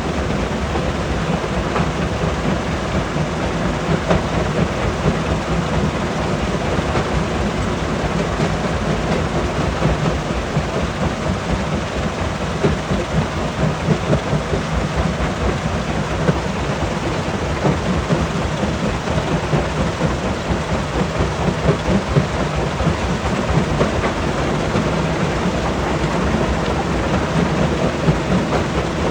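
Stone crusher crushing rock: a steady heavy rumble with a dense, continuous rattle of breaking and tumbling stone.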